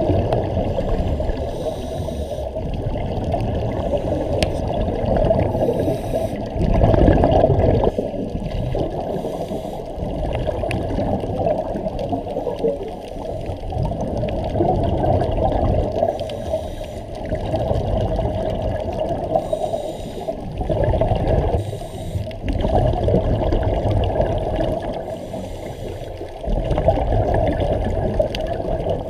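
Scuba divers breathing underwater through their regulators: exhaled bubbles gurgle and rush, swelling and fading every few seconds, heard muffled through a camera housing.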